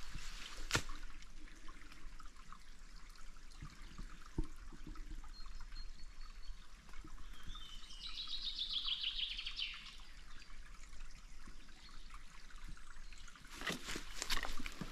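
A small bird sings one short, fast trill about eight seconds in, over a steady background hiss. There are a few footsteps at the start and again near the end.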